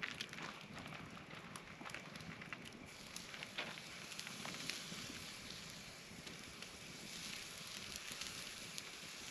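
Wood campfire crackling, with irregular sharp snaps and pops over a soft steady hiss.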